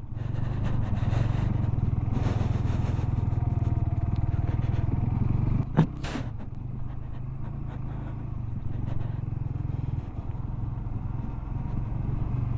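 Motorcycle engine running steadily while the bike rolls down a rough gravel track, with a sharp knock about six seconds in.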